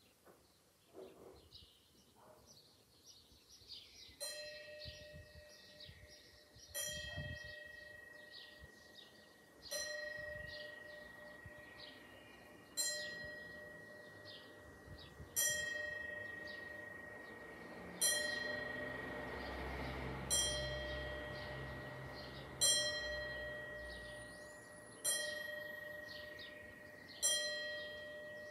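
A single bell in a gable tolled slowly: about ten strokes roughly two and a half seconds apart, starting about four seconds in, each stroke ringing on into the next.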